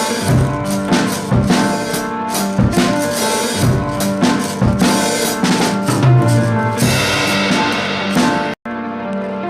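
Background pop music with a drum kit beat and sustained instrument notes; it cuts out for an instant near the end, then resumes more lightly.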